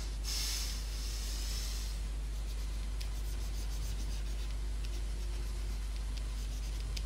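Pen stylus scratching across a graphics tablet as lines are drawn: a run of scratchy strokes in the first couple of seconds, then faint ticks and taps.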